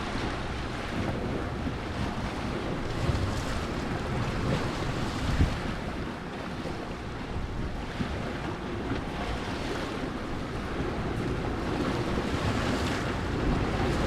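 Gale-force storm wind rushing steadily and buffeting the microphone in gusts, with a few low thumps, such as about three and five seconds in.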